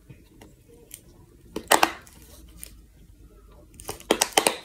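Hard plastic fidget toy clicked and snapped in the hands: a quick cluster of sharp clicks about a second and a half in, and another near the end.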